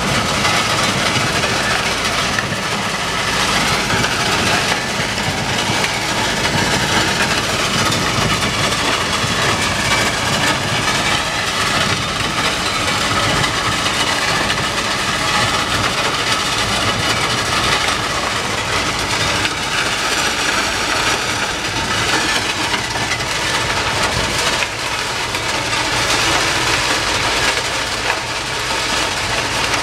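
Rail-mounted track-cleaning machine working along the track: its engine and cleaning gear make a loud, steady mechanical din as it throws up ballast dust.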